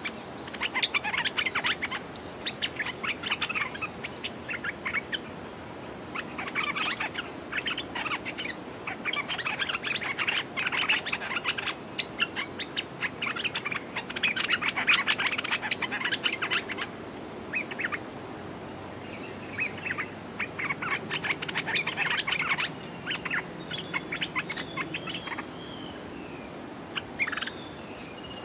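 Bulbuls calling in repeated bursts of rapid chattering notes, a second or two at a time, with a few clear whistled notes near the end.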